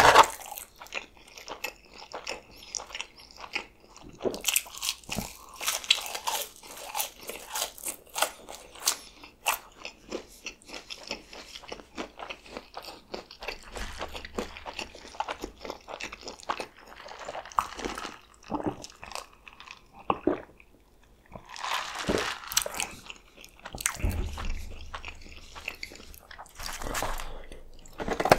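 Close-up chewing and crunching of a mouthful of McDonald's french fries: many short, crisp clicks coming in bursts.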